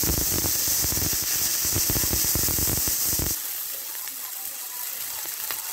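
Water pouring in a stream into a hot wok of sautéed chicken, splashing and sizzling with steam as the broth for chicken tinola goes in. About three seconds in the heavy splashing drops away, leaving a softer hiss.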